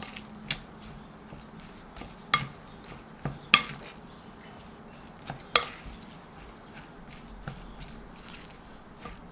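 Wooden spoon stirring rice and chopped kimchi in a glass mixing bowl. The spoon knocks sharply against the bowl a handful of times, loudest about three and a half seconds in.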